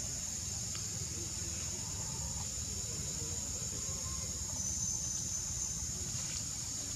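Steady high-pitched insect chorus droning in the forest canopy, with a low rumble underneath.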